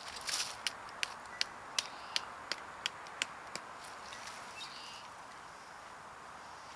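Sharp, evenly spaced knocks of a rock hammering a tent stake into the ground, about three strikes a second, stopping a little past halfway.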